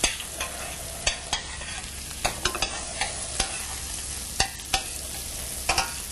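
Minced shallot and garlic sizzling in butter and olive oil in a stainless steel sauté pan, with a steady hiss and repeated sharp clicks and scrapes of a utensil against the pan as they are stirred.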